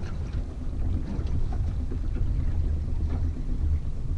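Steady low rumble of a fishing boat under way, with wind buffeting the microphone.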